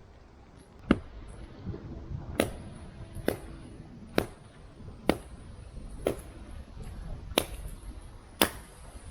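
Repeated blows of a hand tool at a camp, about one a second, eight sharp strikes in all, each with a brief high metallic ring.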